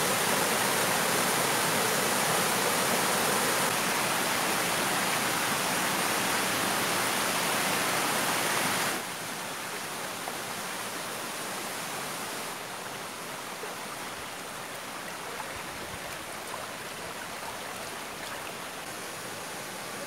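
Shallow seasonal waterfall rushing over a flat rock bed, a steady rush of water. It drops to a softer, more distant flow about nine seconds in, where the view moves to a calmer stretch.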